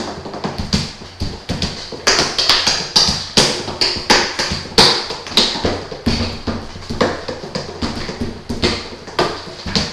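Fingers and knuckles drumming a freestyle groove on the armrests of an armchair. Quick, rhythmic taps and knocks run throughout, with regular louder accents.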